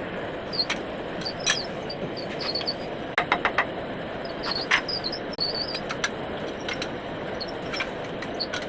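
Lathe running with a steady low hum, over which come sharp clicks and brief high squeaks at irregular moments, several each second or two.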